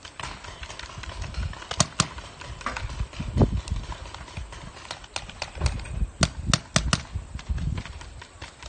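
Paintball markers firing in the distance: scattered sharp pops, a pair about two seconds in and a quicker run of shots toward the end, over a low rumble.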